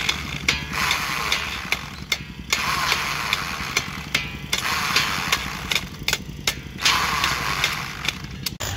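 A handheld power tool running in spells of one to two seconds with short breaks, over a steady low machine hum, with sharp metallic clicks and knocks as steel rods strike the rebar cage.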